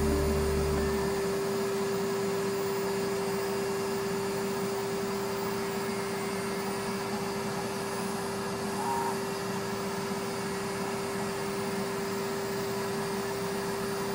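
Skate sharpening machine's grinding wheel running with a steady hum while a figure skate's steel blade is ground along it, throwing sparks.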